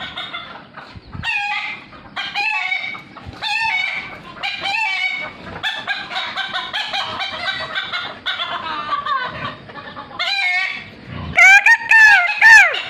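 Chickens clucking on and off, with a rooster crowing loudly near the end, the loudest sound.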